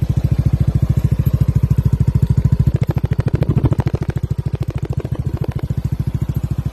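Yamaha Aerox 155 scooter's single-cylinder four-stroke engine idling through a DS4 Powerpipe Version 2 Stage 2 aftermarket exhaust, a steady, even putter of about ten to twelve exhaust pulses a second. It dips slightly in level a little past halfway.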